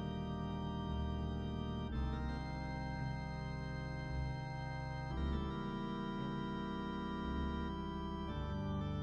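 Slow background music of sustained organ chords that change about every three seconds.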